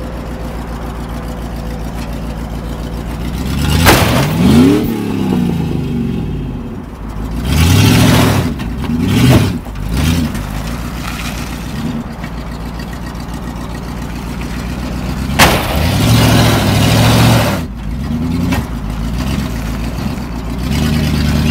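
Demolition derby car engine running and revving in repeated short bursts as the cars are moved, with two sharp bangs, about four seconds in and again around fifteen seconds in.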